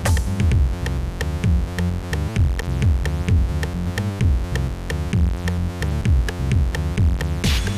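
Electronic background music with a steady drum-machine beat, synthesizer chords and falling bass notes, with a rising swoosh near the end.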